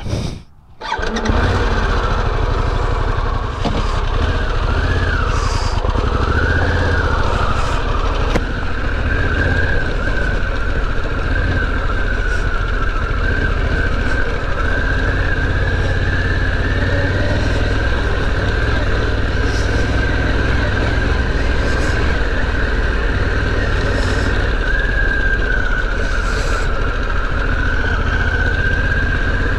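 Harley-Davidson Pan America's 1250 V-twin starting about a second in, then running steadily as the motorcycle rides off, with a wavering high tone above the engine.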